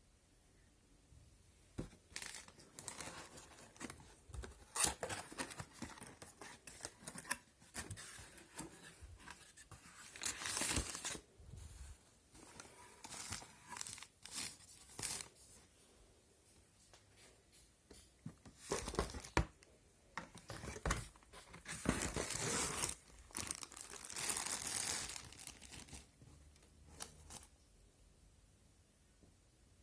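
Packaging being torn open and crinkled by hand, in irregular bursts of tearing and rustling with short pauses, as a boxed hair dryer is unpacked.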